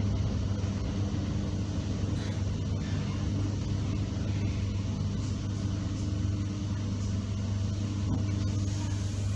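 Inside a carriage of an ER9P AC electric multiple unit rolling slowly: a steady low hum over an even rumble of running noise.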